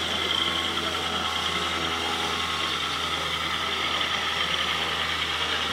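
A steady engine-like idling hum with a constant low drone, under a continuous hiss of background noise.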